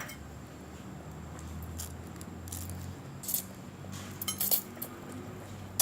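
Cutlery clinking against a dish while someone eats: a handful of short, scattered clinks over a low steady background hum.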